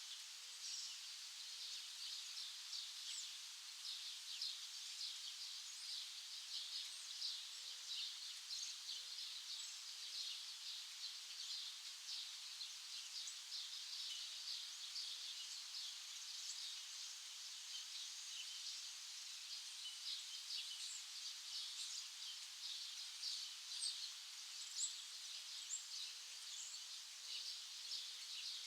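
Many small birds chirping together in a dense, unbroken chorus of short, high chirps and twitters.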